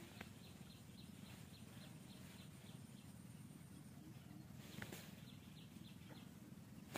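Faint rapid series of short high chirps, about four a second, pausing about four seconds in and then resuming, over a low background hum.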